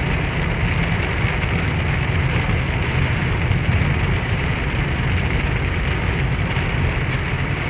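Heavy rain falling on a car's roof and windshield, heard from inside the cabin. Under it is the steady low rumble of the car's engine and tyres on the wet road.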